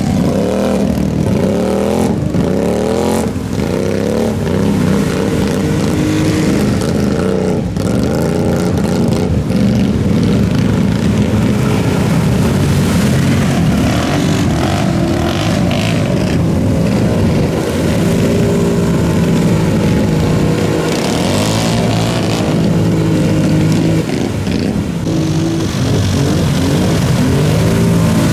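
Off-road vehicle engines revving and running, their pitch repeatedly rising and falling.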